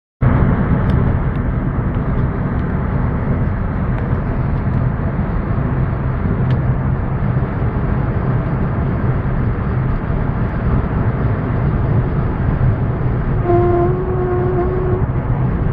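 Steady wind and road rumble inside a Skoda Octavia's cabin at high speed, carrying the strange high-speed noise that was traced to a faulty left front window. A humming tone comes in for about a second and a half near the end.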